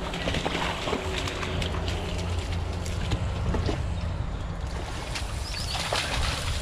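Wind buffeting the microphone, a steady low rumble, with scattered light clicks and rustles over it.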